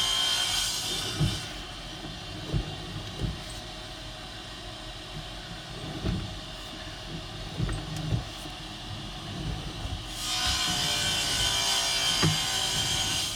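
Sewer inspection camera's push cable being worked through the pipe: irregular low knocks and scraping, with a steady hiss that fades out about a second and a half in and comes back about ten seconds in.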